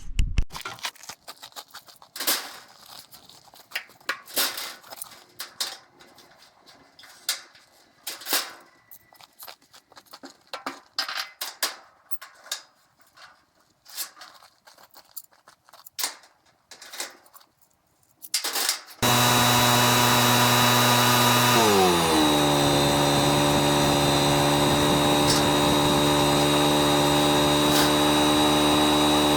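Scattered metal clanks and knocks from steel clamps being handled and set in a fabrication shop. About two-thirds in, a loud steady machine sound starts abruptly, slides down in pitch over a couple of seconds, then holds steady.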